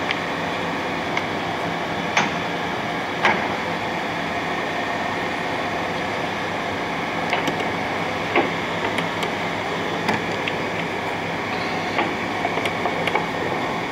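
A 1981 Clausing Colchester 8054 geared-head engine lathe running under power: a steady mechanical hum with several pitched tones from the motor and headstock gearing, with a few sharp clicks scattered through.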